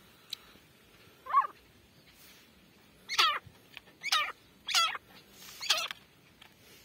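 Caged grey francolin (teetar) calling: five harsh, wavering calls, one about a second in, then four in quick succession between about three and six seconds in.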